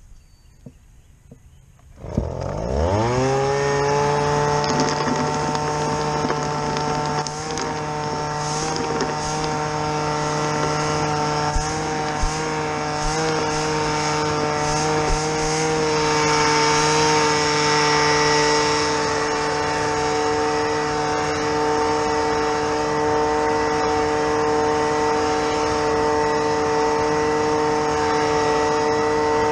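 A motor starts about two seconds in, quickly spins up in pitch and then runs steadily at a constant speed.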